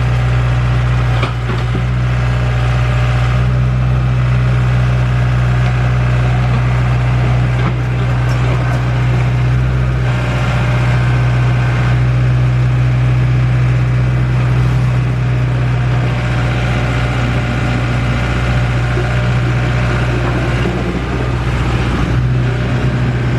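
Excavator's diesel engine running at a steady, unchanging pitch, with a couple of faint knocks, about a second in and again around eight seconds.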